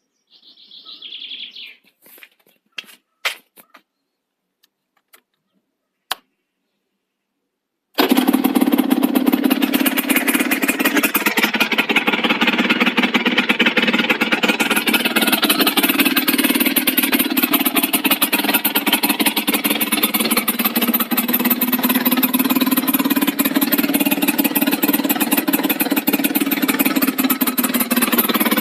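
A few faint clicks, then about eight seconds in the Aprilia RS 125's 125 cc single-cylinder two-stroke engine is heard running loud and steady through an Arrow exhaust with the exhaust valve removed. It has a rapid crackling beat and rises slightly in pitch for a few seconds partway through.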